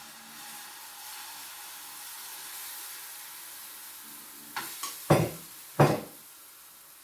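Pancake batter sizzling in hot sesame oil in a frying pan, a steady hiss just after it is poured in. Near the end come a few sharp knocks, two of them loud, of a utensil or bowl against the pan or counter.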